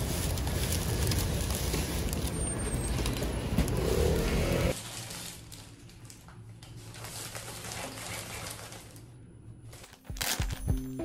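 Wind buffeting the microphone over street noise. It cuts off suddenly about five seconds in, giving way to a quiet low hum indoors. Piano music starts near the end.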